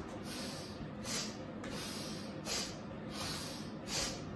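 A woman's forceful exercise breaths, hissing out in a steady rhythm roughly every three-quarters of a second, paced to brisk arm swings while she steps forward and back.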